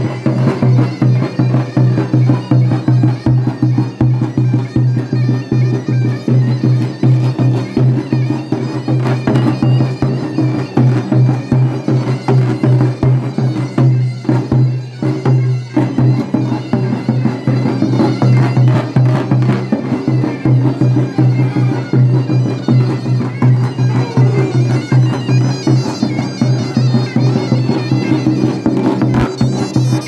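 Davul and zurna playing a fast horon dance tune: the shrill, reedy zurna carries the melody over a steady held tone, and the big two-headed davul drum beats a quick, driving rhythm. The upper melody thins out briefly about halfway through.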